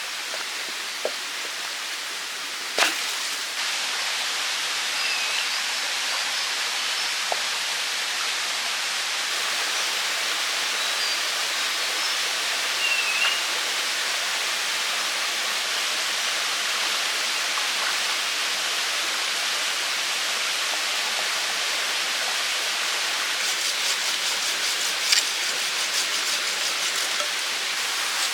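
Steady rush of running water. A few faint high chirps and a couple of sharp clicks sit on top of it.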